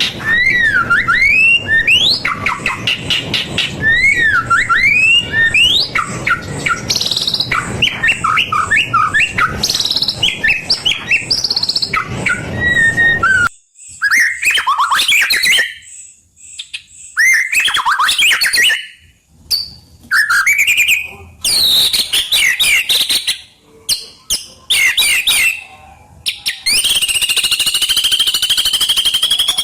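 White-rumped shama (murai batu) singing a long, varied song of quick whistled and chirping phrases. The phrases are continuous at first, then broken by short pauses, and near the end turn into a steady high trill.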